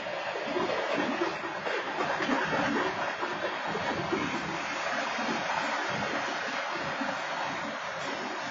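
Freight train of intermodal cars rolling past, a steady noise of wheels on the rails.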